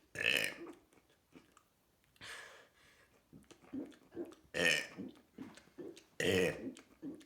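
A person burping loudly, again and again: three strong burps, one near the start, one about four and a half seconds in and one about six seconds in, with a fainter one around two seconds.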